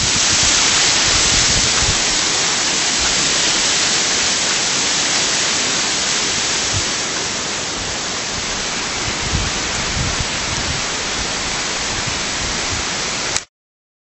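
Steady rushing of a waterfall, a dense hiss strongest in the upper range, slowly getting quieter and cutting off suddenly near the end.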